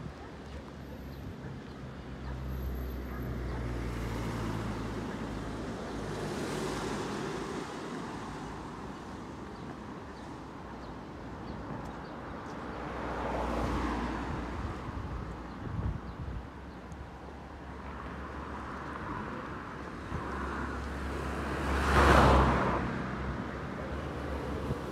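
Street traffic: cars passing one after another over a steady low rumble, each rising and fading away, the loudest passing near the end.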